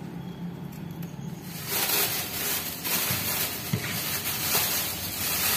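A clear plastic bag rustling and crinkling as it is handled, starting about a second and a half in. Before that, only a low steady hum.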